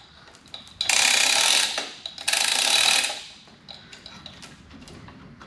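Two bursts of hiss, each about a second long, one about a second in and the other just after two seconds in, with faint clicks of metal parts being handled around them.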